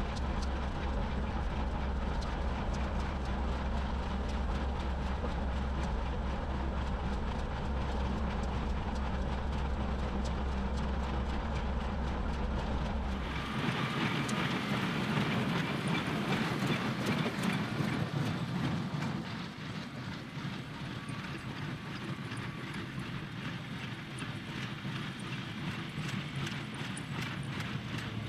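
A John Deere 2038R compact tractor pulling an IH 440 square baler at work, the baler making a rhythmic mechanical clatter over the tractor's engine. About halfway through the sound changes abruptly: a deep engine drone drops away and the clatter becomes louder and brighter.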